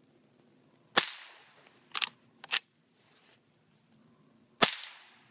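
Henry lever-action .22 rifle firing CCI .22 Short rounds (29-grain, 710 ft/s): two very quiet, sharp shots about three and a half seconds apart, each trailing off over about a second. Between them the lever is worked open and shut in two metallic clacks.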